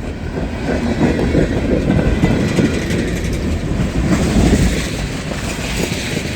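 Freight cars of a CSX mixed freight train rolling past: a steady rumble of steel wheels on rail, with a few sharp clacks as the wheels cross rail joints.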